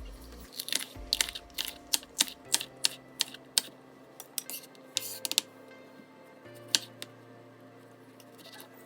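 Knife cutting vegetables on a cutting board: a quick run of about a dozen sharp taps in the first few seconds, a few more later and one loud tap near the end, over background music.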